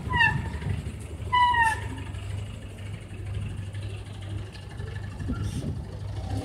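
Street traffic, with a vehicle engine running steadily at a low hum that stops near the end. About a quarter second in, and again about a second later, a bird gives a short call that falls in pitch.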